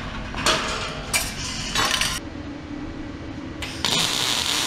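A wire cattle panel clinking and rattling against the steel frame three times in the first two seconds, then, near the end, a YesWelder MP200 MIG welder's arc strikes and runs with a steady hissing crackle as the panel is welded to the square-tube frame.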